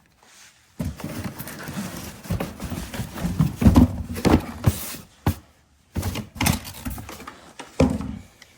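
A cardboard box and its packaging being handled and opened: a run of knocks and scraping, with a short pause about five seconds in.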